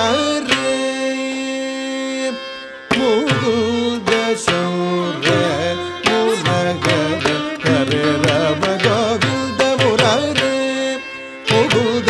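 Carnatic classical music: a long held note, then a melody with wavering, sliding ornaments over a steady drone, pausing briefly twice.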